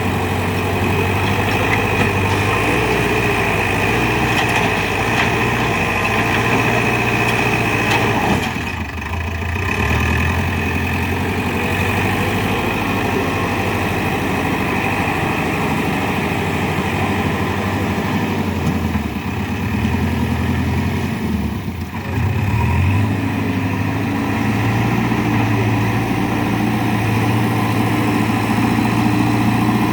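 JCB 3DX backhoe loader's diesel engine running steadily as the machine works. The engine note dips briefly twice, once about a third of the way in and again about two-thirds in.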